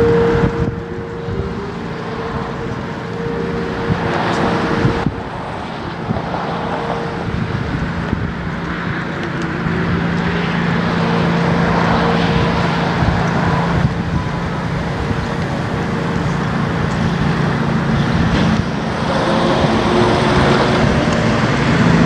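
Federal Signal Thunderbolt 1000T civil defense siren sounding, a steady tone that swells and fades, with a lower tone running on under it. Road traffic noise rises near the end as a vehicle passes.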